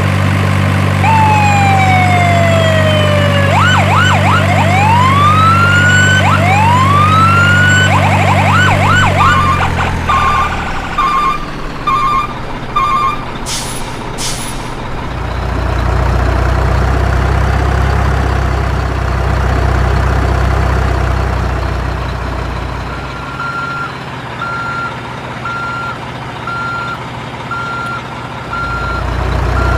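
Electronic truck sound effects from a toy truck: a steady engine hum with siren-like sweeps falling and rising over it, then a short run of beeps and a couple of clicks. About two-thirds in, evenly spaced reversing beeps start over a low rumble.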